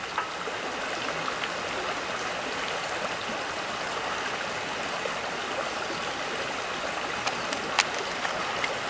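Steady rush of a stream running over rocks, with a few light clicks near the end.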